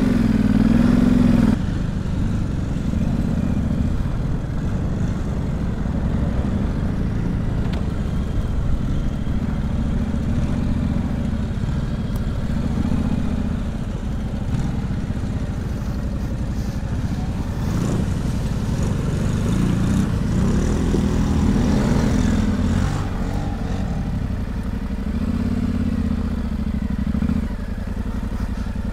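Adventure motorcycle engine heard from on the bike, revving up and down repeatedly as it is ridden over rough grassy ground. It is loudest in the first second or so.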